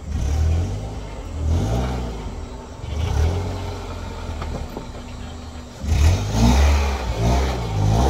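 A car engine revving up and down in several surges, the last and loudest cluster coming near the end.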